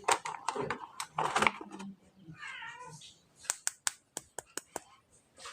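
Rustling and knocks, then a short cry with a wavering pitch about halfway through, followed by a quick run of about eight sharp clicks.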